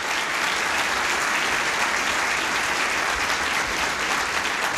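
Large seated audience applauding, many hands clapping steadily.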